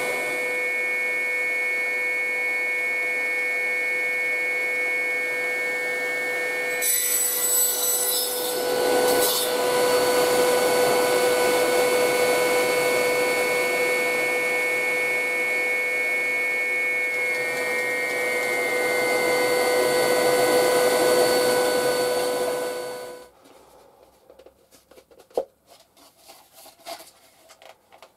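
Shop vac running with a steady motor whine. A brief change in the airflow noise comes about a quarter of the way in, and the vac is switched off and cuts out near the end. A few light knocks and rubs follow as wooden pieces are handled.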